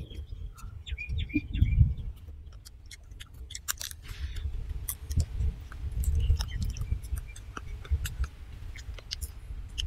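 Chewing and crunching of crisp fried quail eaten by hand, a stream of small sharp crunches and clicks. A few short bird chirps sound about a second in.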